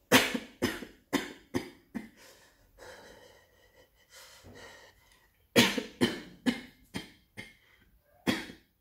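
A person coughing in two fits: a run of about five quick, hard coughs, a short pause, then another run of about six coughs.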